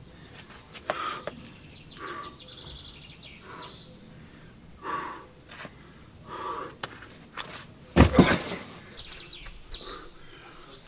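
A boulderer climbing on sandstone: short, sharp exhales between moves and the scuffs and taps of shoes and hands on the rock, with the loudest scuff or thud about eight seconds in.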